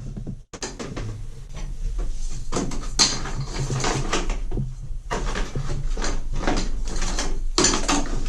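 Irregular knocking, clattering and scraping of toilet parts being handled and worked on, over a low steady hum.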